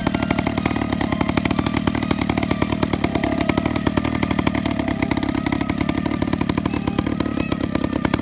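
The 26cc MDR gasoline engine of a model airplane running steadily with its propeller spinning, a fast, even buzz.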